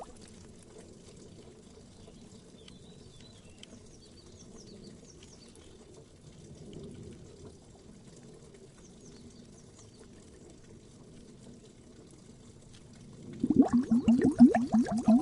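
Water bubbling sound effect: a soft low gurgle with a few faint, high little pops for most of it, then loud, rapid bubbling starts about thirteen seconds in.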